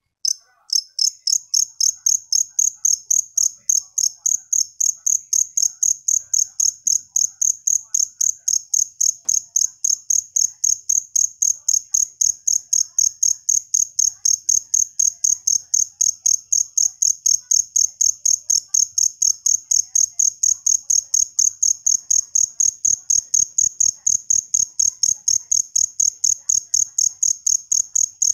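A male two-spotted field cricket (jangkrik jliteng) chirping with its raised forewings, a shrill, evenly pulsed song of several chirps a second that starts abruptly about half a second in and keeps a steady rhythm.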